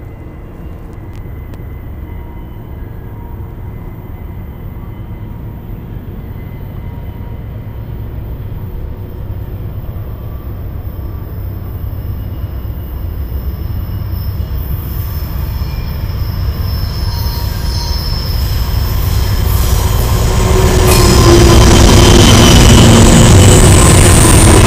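A Norfolk Southern GE Dash 9-40CW diesel locomotive leading a double-stack intermodal train approaches and passes close by. Its low rumble grows steadily louder, thin high tones join in about halfway, and it turns loud near the end as the locomotive goes by.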